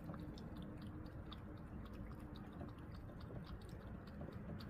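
A cat chewing tuna: faint, irregular small clicks of eating, several a second.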